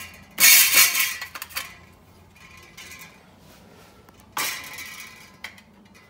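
Metal clinks and scrapes as automotive sheet metal is slid into a homemade aluminum louver punch die and the die is handled into a hydraulic press: a loud clatter about half a second in lasting about a second, then a single sharp clink with a short ring about four and a half seconds in.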